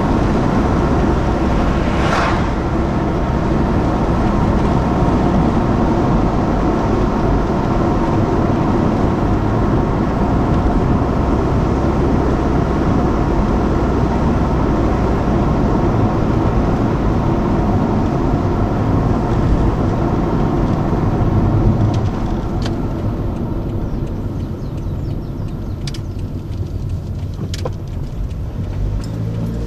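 Car cabin noise while driving: a steady engine and road rumble heard from inside the car. It eases off about three-quarters of the way through, with a few faint clicks near the end.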